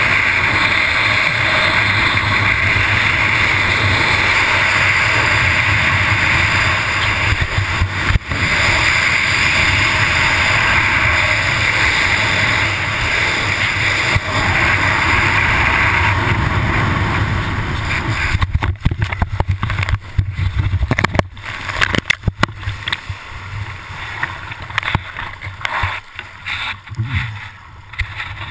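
Steady rushing wind on the microphone of a parasailer's body-mounted camera in flight behind the tow boat; after about seventeen seconds it turns gusty and uneven, with water splashing near the end as the rider touches down in the sea.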